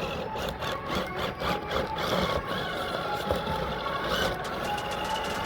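Radio-controlled comp crawler truck running: the small electric motor and geared drivetrain whirring steadily, with scattered clicks and knocks.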